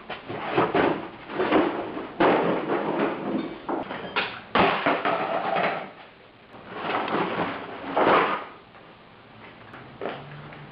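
Junk and loose parts being handled and dumped out of a car trunk: a string of rough clattering and scraping bursts, with sharp knocks about two and four and a half seconds in.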